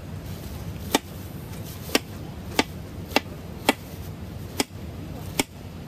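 A kitchen knife chopping through a peeled pineapple, the blade knocking on the board beneath. There are seven sharp knocks at uneven intervals, roughly one every half second to one second.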